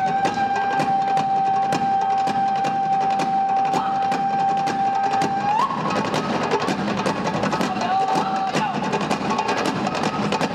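Live music: several large hand-beaten drums playing a steady fast beat, with one long high note held over them that steps up in pitch a little past halfway through.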